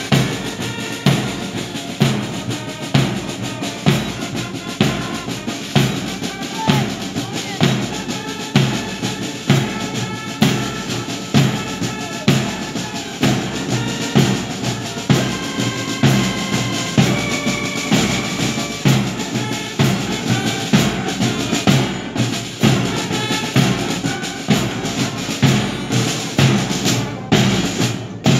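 Military marching band playing a march: a bass drum beats steadily about once a second under snare drum, with a melody held on wind instruments above.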